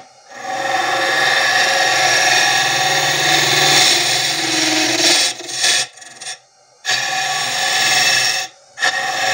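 A spinning soft-wood blank on a wood lathe is cut into its end grain with a ring-and-hook hollowing tool: a steady shearing, rasping hiss over the lathe's low hum. The cut comes in passes, broken by brief gaps where the tool comes off the wood, the longest a little past the middle and a short one near the end.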